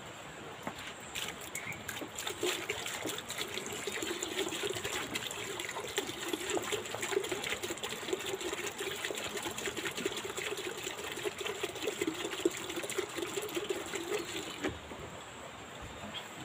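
Liquid poured from a plastic jerrycan into a plastic bucket of white granules. The pour is steady, starts about a second in and stops shortly before the end.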